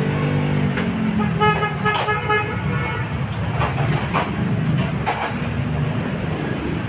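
A vehicle horn sounds once for about a second and a half, starting about a second and a half in, over a steady rumble of traffic and workshop noise. A few sharp clicks come near the end of the horn and twice more later.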